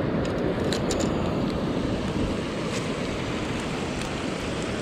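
Steady rushing of a high, snowmelt-swollen river running past the bank, with a few faint light ticks in the first second or so.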